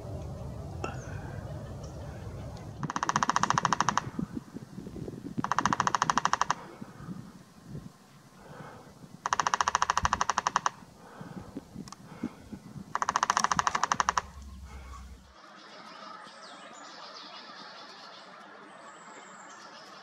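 Downy Woodpecker drumming on a dead tree trunk: four rapid drum rolls, each just over a second long, spaced a few seconds apart.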